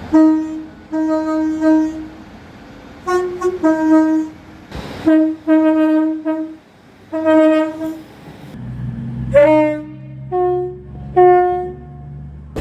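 Short train horn blasts one after another, each a single held note lasting under a second, with the pitch shifting between groups of blasts as different horns sound. From about eight and a half seconds a low steady engine hum runs beneath the last three blasts, which are a little higher in pitch.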